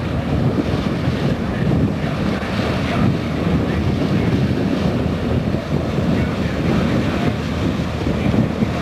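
Wind buffeting the microphone in a steady low rush, with sea and the wash of a passing boat beneath it.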